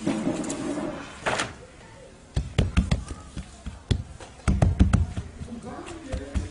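Hands slapping and patting bread dough: a run of sharp, dull slaps, bunched in two quick flurries about halfway through.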